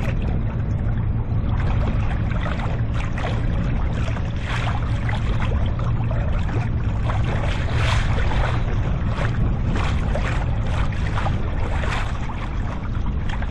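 Strong wind buffeting the microphone in a steady low rumble, with choppy water slapping and splashing irregularly against a kayak's hull.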